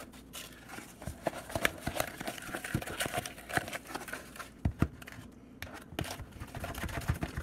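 A spatula stirring thick mashed-banana batter in a plastic tub, with irregular scrapes and knocks against the plastic.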